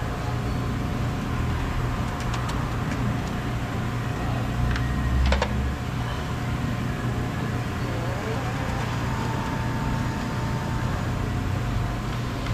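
Scattered metallic clicks and clinks of hand tools as the bolts holding a car's intake manifold are undone, the sharpest about five seconds in, over a steady low rumble.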